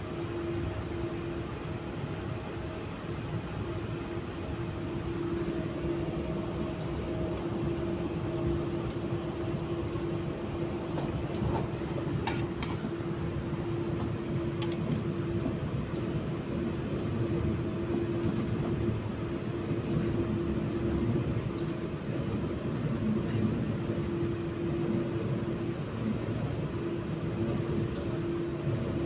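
Interior sound of an AM class electric multiple unit under way: a steady rumble of wheels on the rails with a constant hum running through it, and a few faint clicks.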